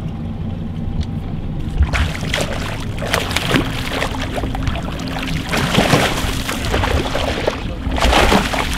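A hooked snook thrashing and splashing at the water's surface beside the boat: a run of irregular splashes beginning about two seconds in, over a steady low hum.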